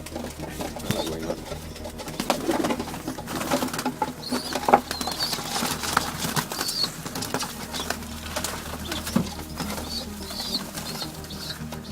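Young racing pigeons flapping their wings, with many short sharp flaps and clusters of short high calls.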